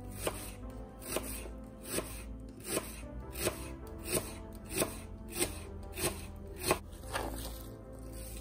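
Kitchen knife slicing an onion into half rings on a plastic cutting board: a steady rhythm of about eleven cuts, roughly one every two-thirds of a second, stopping near the end. Background music plays underneath.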